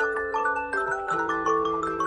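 Samsung alarm tone ringing from the device's speaker: a bright, marimba-like melody of quick pitched notes over a lower held line, playing on without a break.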